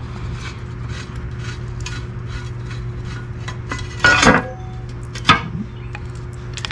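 Hand tools clicking and clinking on metal as the skid plate bolts are worked loose, over a steady low hum. A louder metallic clatter comes about four seconds in, and a sharp clank just after five seconds.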